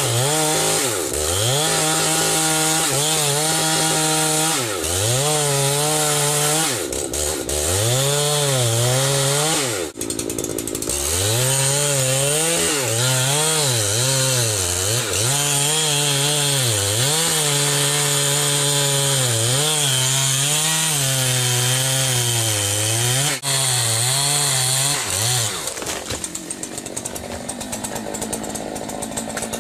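Chainsaw cutting through a large log at high revs, its engine pitch repeatedly dipping and recovering as the chain bogs in the wood, with a brief let-off about ten seconds in. Near the end the saw comes off the throttle and the sound drops away.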